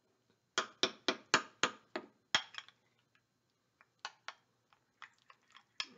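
Metal spoon clinking against a small glass bowl while stirring thick yogurt: a quick run of about seven clinks in the first couple of seconds, then a few more scattered, fainter ones.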